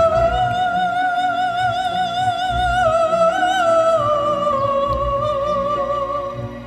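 Operatic singing as background music: a single voice holds long notes with a wide vibrato, stepping down to a lower note about four seconds in, over a soft accompaniment.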